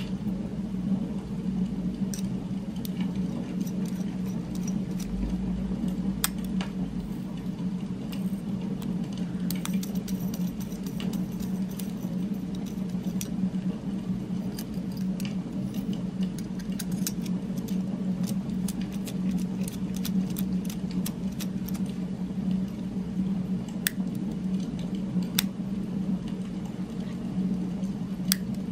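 Small metallic clicks and taps from handling the chrome barrel parts of a Fisher AG7 Space Pen, scattered a few to a second over a steady low hum.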